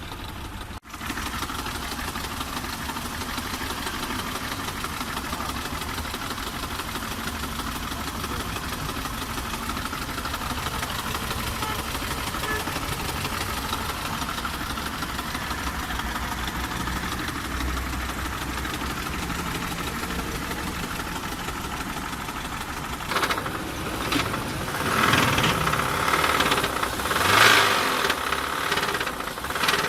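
HDi diesel car engine idling with a knocking noise. About a second in the sound cuts out briefly, and over the last six or seven seconds it grows louder and uneven.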